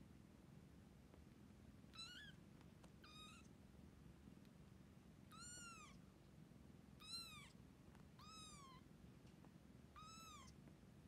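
Young kittens mewing while nursing: six short, high-pitched mews, each rising then falling in pitch, spaced one to two and a half seconds apart.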